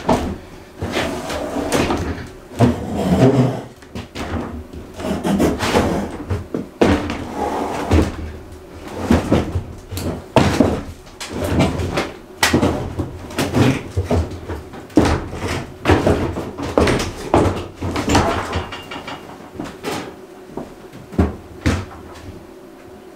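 Irregular wooden knocks and clunks, many of them, as a wooden cabinet is handled and moved about.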